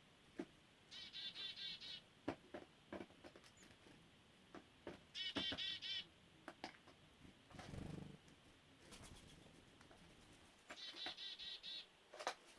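Black-billed magpies giving their rapid chattering call three times, each bout a run of quick repeated notes lasting about a second. Scattered sharp taps and clicks come in between.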